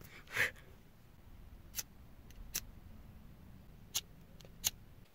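Quiet low hum with a handful of separate sharp clicks, roughly one every second, and a short hiss near the start.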